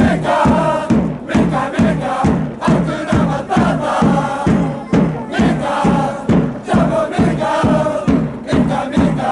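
Football supporters' chant: a large crowd singing in unison, driven by a heavy drum beat about twice a second.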